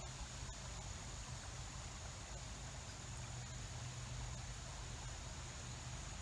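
Steady outdoor ambience of water running over a shallow creek riffle, with a thin, steady high insect note above it and a low rumble underneath.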